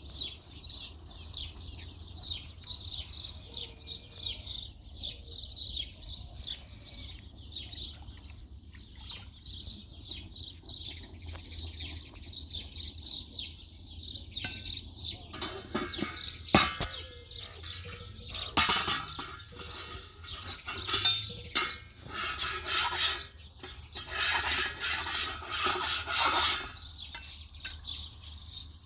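Many small birds chirping and twittering without a break, over a steady low hum. A sharp knock comes about halfway through, followed by louder, harsher noisy bursts in the second half.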